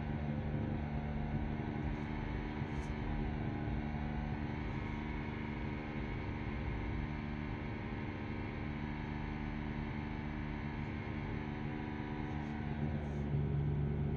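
An engine running steadily: an even, low droning hum, with a faint tick about three seconds in and another near the end.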